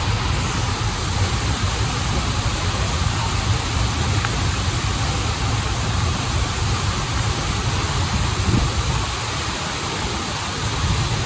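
Waterfall and flowing stream water rushing steadily: an even, unbroken wash of noise with a strong low end.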